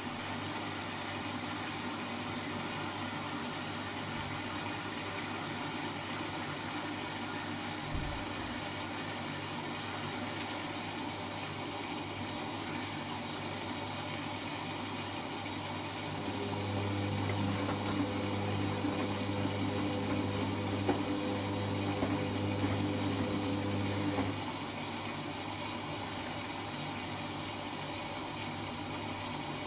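Servis Automatic M3008B washing machine in the filling stage of a quick wash: a steady hiss of water running in, with a single click about eight seconds in. About halfway through, a motor hum comes in for roughly eight seconds and then stops.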